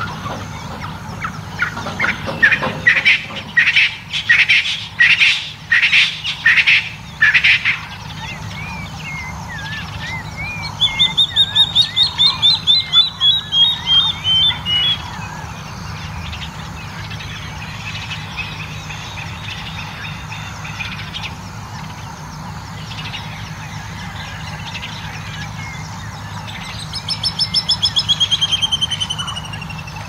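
Early-morning chorus of several wild bird species. A loud series of repeated calls comes in the first several seconds, then a fast run of high repeated notes about ten seconds in, and another quickening run of high notes near the end, with fainter calls between them over a low steady hum.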